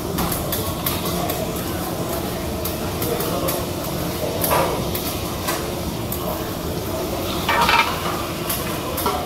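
Metal spatulas clinking and scraping on a steel teppanyaki griddle in quick, irregular strokes, over a steady sizzle of food frying, with one louder stroke near the end.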